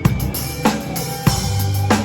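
Pearl Reference drum kit played in a steady groove, with a snare stroke about every 0.6 s over bass drum and cymbals, along with the song's backing music.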